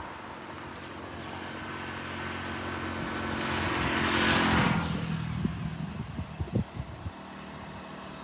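A motor vehicle passing by: engine and tyre noise grow louder to a peak about four and a half seconds in, then fade away. Wind gusts buffet the microphone with low thumps after it has passed.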